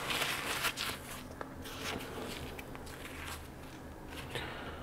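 Handling noises: a short scratchy rustle in the first second or so, then faint scattered clicks and taps.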